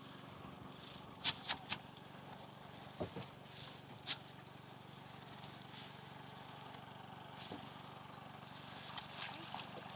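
A few short, light clicks and knocks as a cast net and its rope are gathered up in a wooden canoe, in a cluster a little over a second in and again around three and four seconds, over a faint steady drone of a distant motor.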